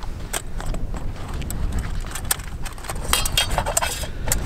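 Metal camping cook pot and lid clinking and rattling as the nested cook set is handled and opened, with a cluster of clinks about three seconds in. Steady wind buffets the microphone underneath.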